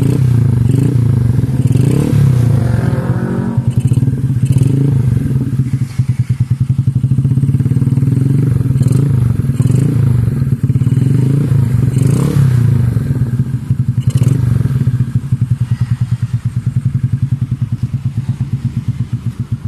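Yamaha Mio scooter's stock single-cylinder four-stroke engine running through a KOU Mahachai aftermarket exhaust. It is revved up briefly about two seconds in and again about twelve seconds in, and otherwise idles with an even, pulsing exhaust beat.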